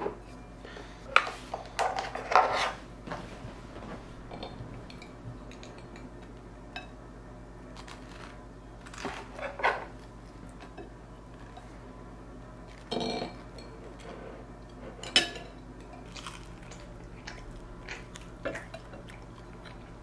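Dishes and cutlery being handled: scattered clinks and knocks, several close together in the first few seconds, then single ones every few seconds.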